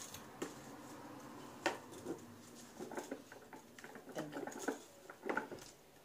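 Handling noises from a Numatic Henry vacuum cleaner that is switched off: a few sharp clicks and knocks and soft rustling as a paper dust bag is fitted into its plastic tub.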